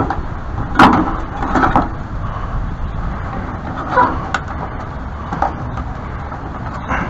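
Drain spout parts being handled and fitted: a few sharp clicks and knocks, the loudest about a second in, over a steady low rumble of wind on the microphone.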